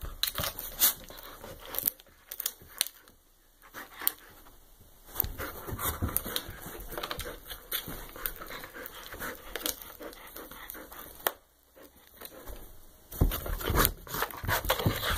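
Black Labrador gnawing a hard chew bone: irregular clicks, cracks and scraping of teeth on the bone, with a couple of short pauses and louder chewing near the end.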